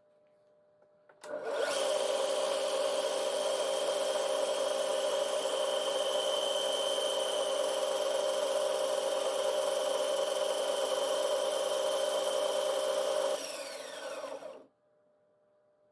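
A power tool starts abruptly about a second in and runs at a steady speed with a continuous whine. Near the end it is switched off and its motor winds down with a falling whine.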